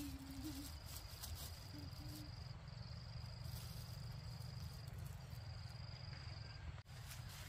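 Insect trilling in a steady high tone that breaks off a few times, over a constant low rumble.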